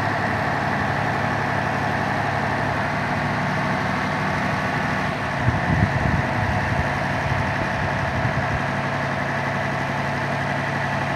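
Engine of a boom-lift crane running at a steady idle, with a brief louder low rumble about six seconds in.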